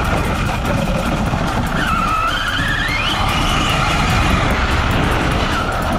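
Arrma Mojave RC truck driving flat out across a field, heard from on board: the electric motor whines steadily and rises in pitch about two seconds in as it speeds up, over a constant low rumble from the tyres and drivetrain.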